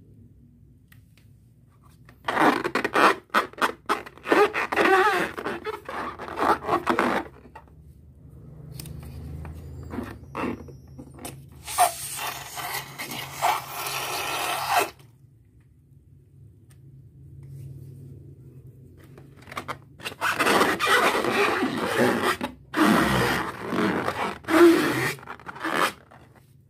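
Rubber balloons squeaking and rasping as they are rubbed and squeezed, in several bursts of a few seconds each.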